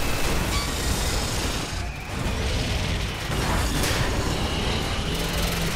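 Film sound effects of the alien spinning shredder spheres tearing through a warship: dense, continuous metallic grinding and crashing with booms, over a film score.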